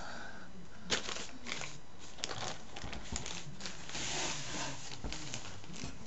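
Crinkling of a plastic anti-static bag being handled, with scattered small clicks and knocks of computer parts on the desk.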